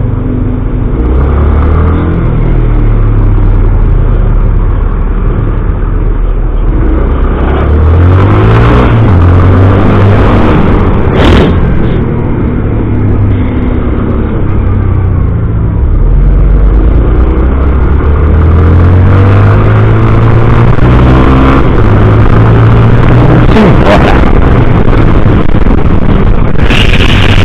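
Honda CB650 inline-four motorcycle engine running loud under way, its pitch climbing and dropping in steps as the revs rise and the gears change.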